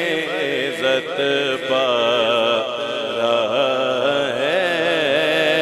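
Male voice singing a naat in long, wavering melodic runs with no words broken out, amplified through a sound system, over a low steady drone beneath.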